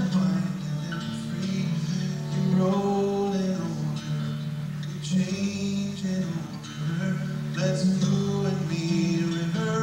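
Background music with guitar, its notes changing every second or so.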